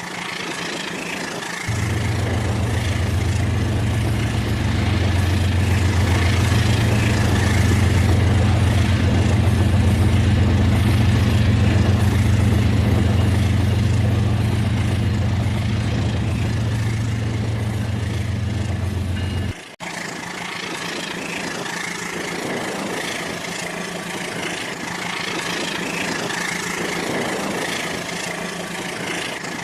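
Rail King toy train running, with a steady engine-like hum. The hum is loud for most of the stretch, then drops off abruptly about twenty seconds in, and a quieter running sound carries on.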